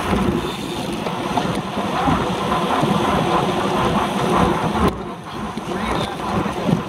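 Wind buffeting the microphone of a handlebar-mounted camera on a road bike moving at race speed: a loud, steady rushing rumble that eases briefly about five seconds in.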